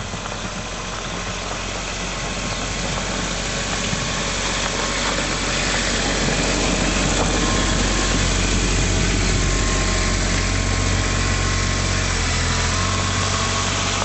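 Kubota RTV900 utility vehicle's three-cylinder diesel engine running steadily at low speed while pushing a snowplough blade, growing louder as it draws close and loudest a little past halfway.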